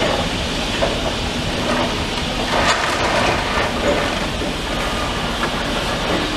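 Demolition machinery at work: a steady engine drone under crunching and scraping of rubble, loudest about three seconds in.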